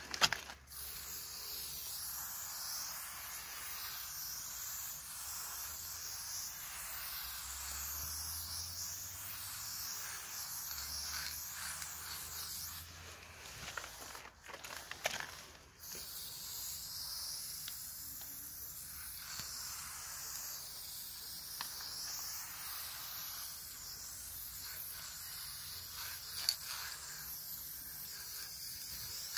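Aerosol spray paint can hissing steadily as paint is sprayed onto a wall, stopping for a few seconds about halfway, with a few clicks, then spraying again.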